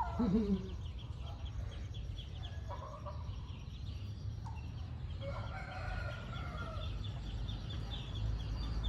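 Chickens clucking and calling in short pitched calls, with a longer drawn-out call a little past the middle, over a steady low hum.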